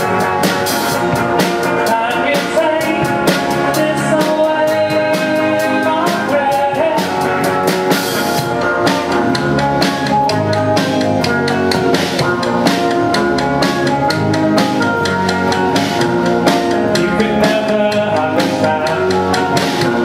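A live band playing a song: a drum kit keeps a steady beat under strummed guitars, with sung vocals at times.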